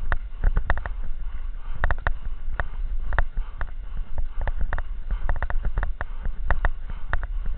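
Cross-country skiing heard from a body-worn camera: a steady low rumble of movement with frequent, irregular sharp clicks and knocks.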